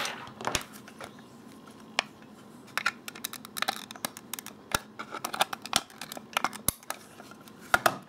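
Scattered light clicks and plastic handling sounds as the RJ11 modular plug of a Tag-Connect programming cable is pushed into the socket of a Microchip MPLAB ICD 3 debugger and the unit is turned and set down. The sharpest clicks fall about two seconds in, near five seconds, and near the end.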